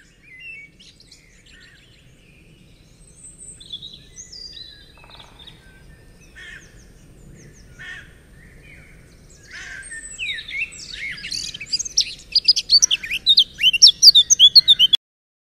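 Songbirds chirping and singing, sparse and faint at first, then louder and busier with fast runs of high chirps from about two-thirds of the way in. The sound cuts off suddenly near the end.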